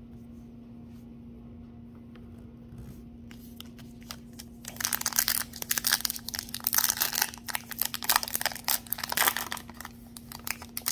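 Foil trading-card pack wrapper being torn open and crinkled by hand. The first four seconds or so are quiet with a few faint clicks. From about halfway in there are several seconds of loud crackling and tearing. A low steady hum runs underneath throughout.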